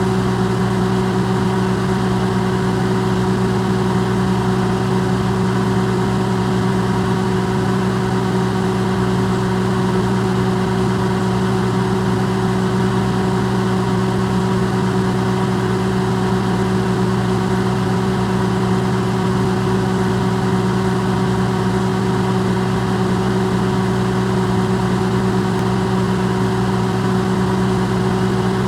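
Electrolux microwave oven running, recorded close-up and amplified: a steady, unchanging hum with a whirring haze over it.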